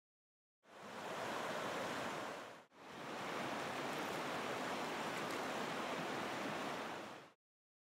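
Steady rushing of river water, heard in two stretches that fade in and out, with a brief break a little under three seconds in.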